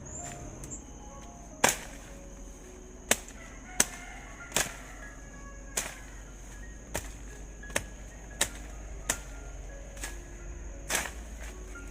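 Repeated sharp swishing strikes of a blade cutting through weeds and brush, about ten of them, irregularly spaced at roughly one a second.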